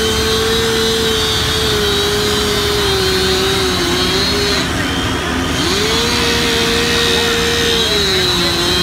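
A loud mechanical drone with a whine that holds, sinks slowly in pitch, breaks off about halfway, climbs back up and sinks again. A faint high steady tone rings above it.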